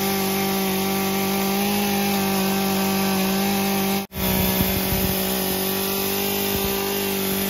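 Poulan gas chainsaw running at a steady pitch while its bar tip scrapes out the hollow of a wooden birdhouse. The sound drops out for an instant about four seconds in, then the saw runs on with a few low knocks.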